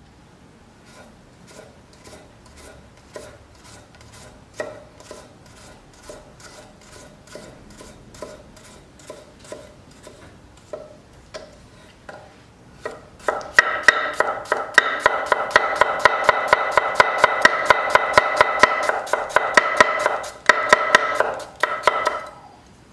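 Japanese gyuto chef's knife slicing a radish on a wooden cutting board: crisp cuts, each ending in a tap on the board, about two a second at first. About halfway through the cutting speeds up to a rapid, much louder run of taps with a steady ring underneath.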